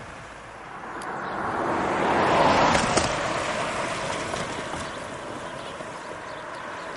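A car passing on a wet, slushy road: tyre hiss swells to its loudest about two and a half seconds in, then fades away slowly.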